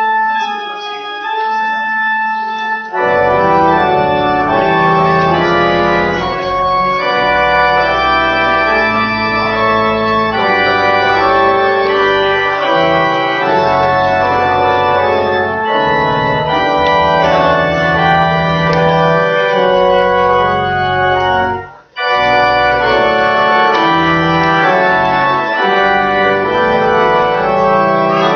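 Church organ playing sustained chords, lightly for the first few seconds, then fuller with deep bass notes from about three seconds in. The music breaks off briefly about three-quarters of the way through, then resumes.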